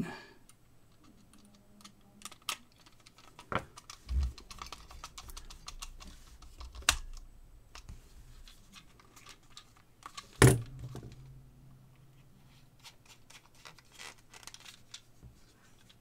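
Scattered light clicks and taps from handling a plastic digital tire pressure gauge housing and a small precision screwdriver on a desk. A few louder knocks break in, the loudest about ten seconds in.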